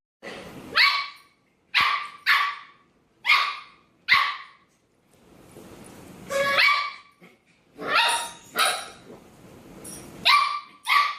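A dog barking, about ten short, sharp barks in irregular groups.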